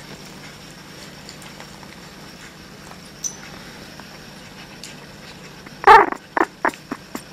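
Japanese Chin puppy making a faint, steady, purr-like low rumble. About six seconds in comes a sudden loud, pitched vocal sound, followed by several short sharp sounds.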